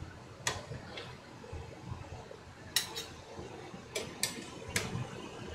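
Cooking utensils clinking and knocking against cookware about seven times, in short scattered strikes, as the cooked samgyetang chicken is moved into another pot.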